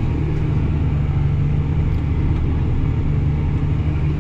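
Tractor engine running steadily, heard from inside the cab as it works a field: a constant low drone.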